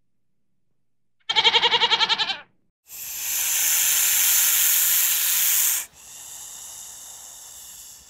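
A goat bleats once, a fast-quavering call a little over a second long. After a short gap a snake hisses loudly for about three seconds, then goes on with a softer hiss.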